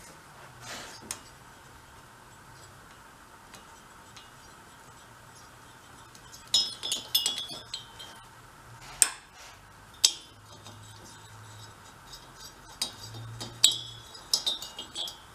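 Light metallic clinks and short ringing tings from a wrench and small steel hardware as the cylinder head nuts and washers are worked off the Benelli Buzzer mini bike's engine. They come in a few scattered clusters, the busiest past the middle and near the end.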